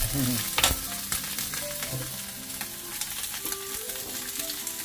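Beef steak searing in a hot pan: a steady sizzle with a few sharp crackles.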